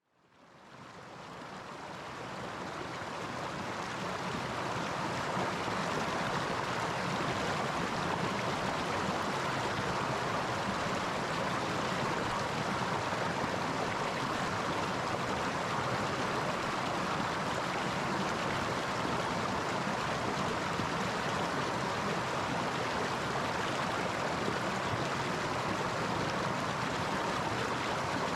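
River water flowing and rushing steadily over rocks, fading in over the first few seconds.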